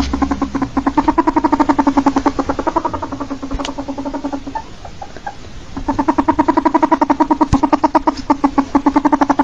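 Ferret calling with a rapid train of pitched clucks, about ten a second, that breaks off for about a second just past the middle and then starts again.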